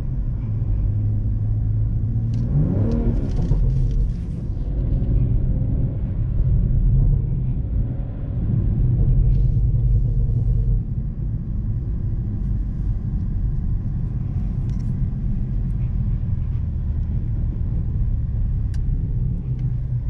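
BMW M340i's turbocharged 3.0-litre inline-six pulling the car along through snow, a steady low engine hum over a dense rumble of tyres and road noise. The engine note rises and falls once, briefly, about two to three seconds in.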